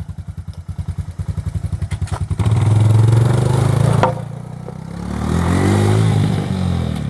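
Small engine idling with an even, rapid putter. About two and a half seconds in it revs up and runs louder, drops back about four seconds in, then rises and falls in pitch again near the end.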